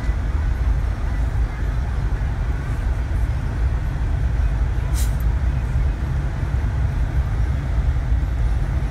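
Steady road and engine rumble inside a moving car's cabin, with a single sharp click about five seconds in.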